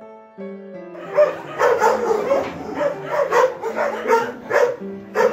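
Dog barking repeatedly and rapidly, about two to three barks a second, starting about a second in, over soft piano background music.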